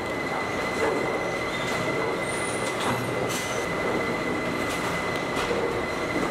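Bowling alley din: a steady rumble of balls rolling down the lanes, broken by several short clatters of pins and machinery, over a constant high-pitched whine.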